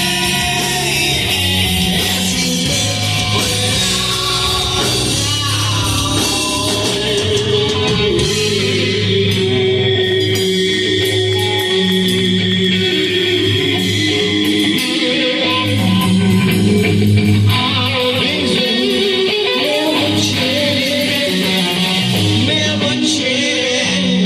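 Live hard rock band playing in a hall: electric guitars, bass and drums under a sung vocal line, loud and continuous.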